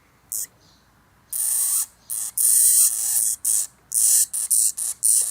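Hamster screeching in short, harsh, hissy bursts. One brief screech is followed by a pause of almost a second, then a quick run of screeches.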